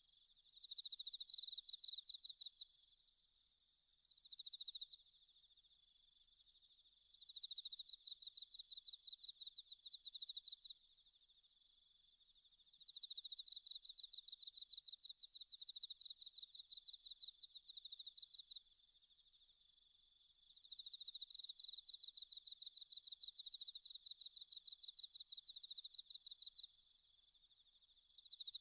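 Crickets chirping: repeated bouts of rapid, high trills a few seconds long, with short pauses between.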